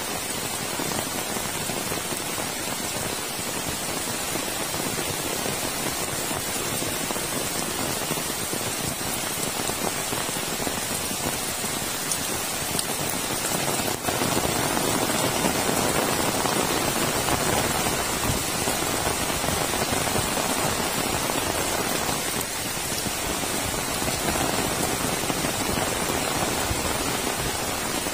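Heavy rain falling steadily, a dense even hiss, growing a little louder for several seconds in the middle.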